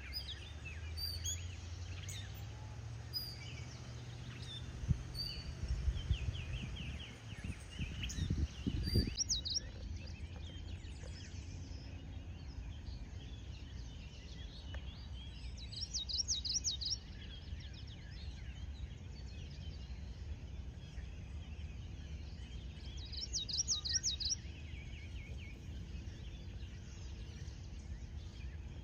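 Wild birds calling, with short chirps early on and two quick high trills of rapidly repeated notes, one near the middle and one later, over a steady low background rumble. A few low knocks sound around a quarter of the way in.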